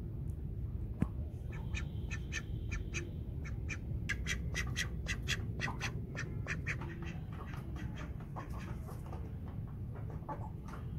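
Domestic mallard-type ducks quacking in a quick run of short, rapid calls, which thin out and fade over the last few seconds.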